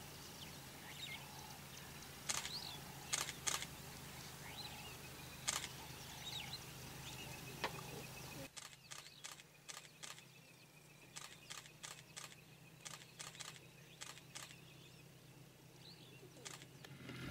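Faint outdoor ambience with scattered short bird chirps and sharp clicks. The low background hum drops out abruptly about eight and a half seconds in, and the clicks then come quicker.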